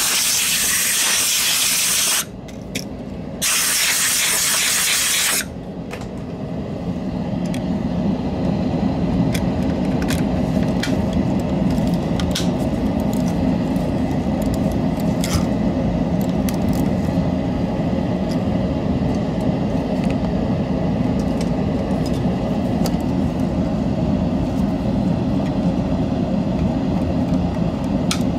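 Compressed air blown in two bursts of about two seconds each, a loud hiss, cleaning dust out of the opened mouse. After them a steady low rumble runs on, with scattered light clicks of plastic.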